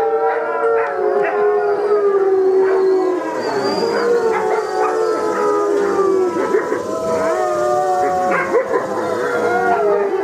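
A pack of wolves howling in chorus: several long howls overlapping at different pitches, with short calls mixed in throughout.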